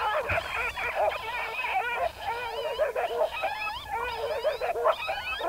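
Coyote-type yipping and howling: many overlapping, rapidly wavering high calls, as from a group of coyotes or an electronic predator call playing coyote sounds.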